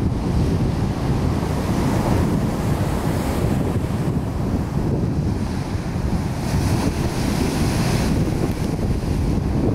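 Surf breaking and washing up a sandy beach, with wind buffeting the microphone as a heavy low rumble. The hiss of the wash swells around three seconds in and again about seven to eight seconds in.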